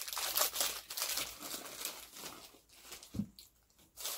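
Plastic snack wrapper crinkling and crackling as it is pulled open by hand, thickest in the first two seconds and then thinning to scattered crackles.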